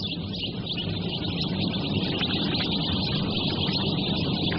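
A crowd of newly hatched chicks peeping all at once in a hatchery tray, many short high chirps overlapping, over a steady low machine hum.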